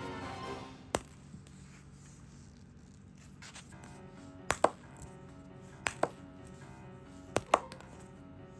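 Table tennis ball bouncing: one click about a second in, then three pairs of quick clicks about a second and a half apart, over quiet background music.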